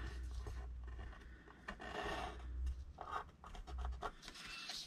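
Pencil tracing lightly around a paper template on patterned paper: a series of short, faint scratchy strokes.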